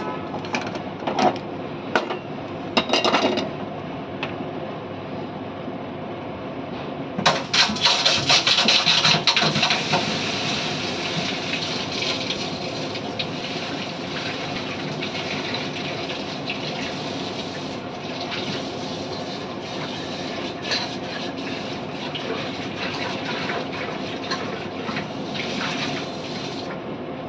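Metal clanks as a kadai is handled with pan tongs, then from about seven seconds in a loud hiss of water droplets sizzling in a hot, freshly washed aluminium kadai, easing off slowly but not dying away. A steady hum runs underneath.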